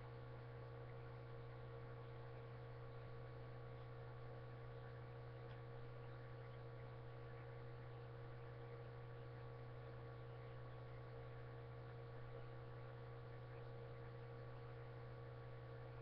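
Faint, steady electrical hum with a low hiss: the background noise of a webcam microphone, with no other sound.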